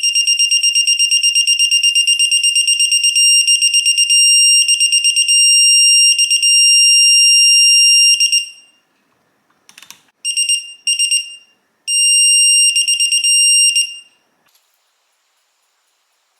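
Quinn electronic torque wrench's alarm beeping high-pitched as it is pulled against a set torque of 30 ft-lb: a rapid pulsing beep that merges into a steady tone, signalling the torque is reached. It stops about eight seconds in, then sounds again in two short beeps and a longer tone.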